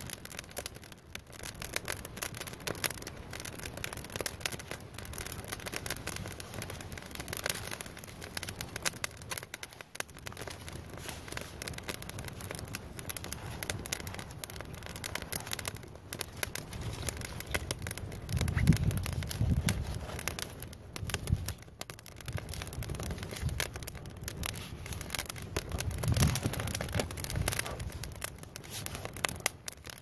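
Small fire of dry twigs and wood shavings catching and burning up, with dense, irregular crackling of the kindling. Two stretches of low rushing sound come in about two-thirds of the way through and again near the end.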